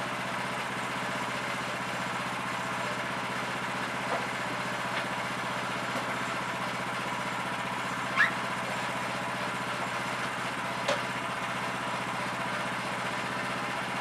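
Small gas engine of the sawmill idling steadily, with a few sharp knocks from a cant hook on the fir log; the loudest comes about 8 seconds in.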